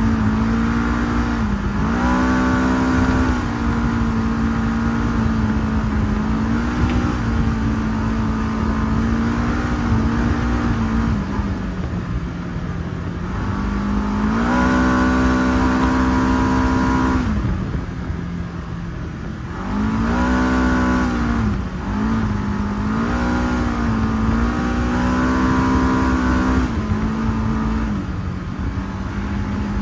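Segway 1000 UTV engine running under way, its pitch rising with the throttle and dropping back several times, the longest pull about halfway through.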